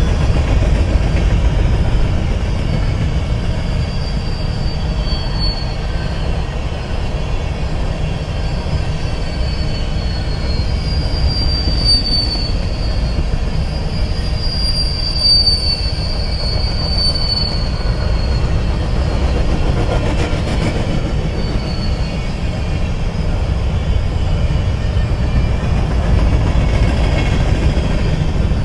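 BNSF freight train of covered hopper cars rolling past close by, a steady loud rumble of steel wheels on rail. High-pitched wheel squeals drifting in pitch come and go over it, strongest through the middle.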